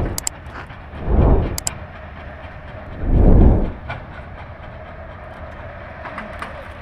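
Three low rumbling gusts of wind buffeting the microphone in the first four seconds, over a steady mechanical hum from the machinery on an open construction site.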